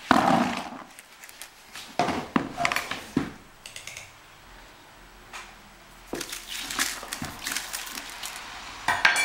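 Crushed green olives tipped into an empty plastic bucket: a loud rush of them falling right at the start, then further bursts of clicking and knocking as more drop in, with a loud one near the end.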